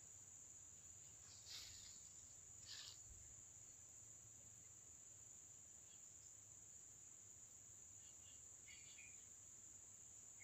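Faint, steady high-pitched drone of rainforest insects, with two brief soft rustles in the first few seconds.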